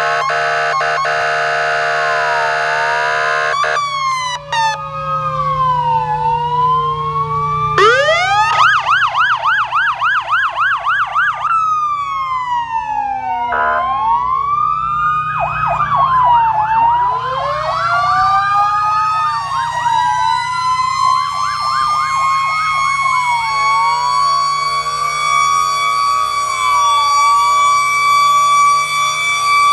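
Several fire-engine and emergency-vehicle sirens sounding at once from parked vehicles, slow rising-and-falling wails overlapping with rapid yelps that come and go, over a low engine hum. A steady blaring tone runs for the first few seconds. The sirens are sounded together as a protest, not on an emergency call.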